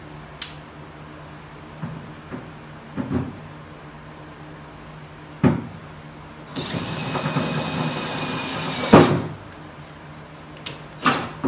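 Cordless drill with a 3.5-inch hole saw running against a car hood for about two and a half seconds, starting around six and a half seconds in and ending with a loud knock. A few short knocks come before and after it.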